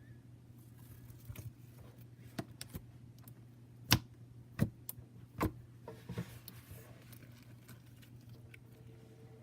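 Slime being poked with fingers: a string of short, sharp wet clicks and pops, about seven in all, the loudest about four seconds in. A steady low hum sits underneath.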